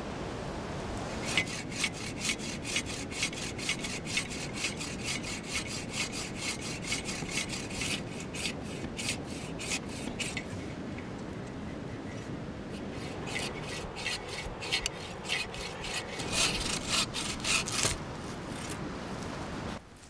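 Agawa Canyon folding bow saw cutting through a birch trunk: a steady back-and-forth rasp of about three strokes a second, easing off about halfway through and then picking up again.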